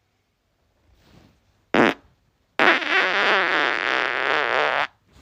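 A man farting: a short sharp burst just before two seconds in, then a long loud fart with a wavering, fluttering pitch lasting a bit over two seconds.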